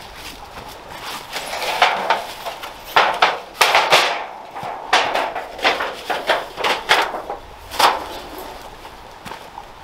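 Thin titanium sheet of a roll-up stove pipe being flexed and rolled into a tube, giving an irregular run of sharp metallic crinkles and clacks.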